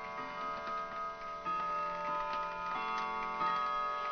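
Clock chime ringing: several struck notes sustain and overlap, with new notes struck about a second and a half in and twice more near the end. A clock ticks underneath.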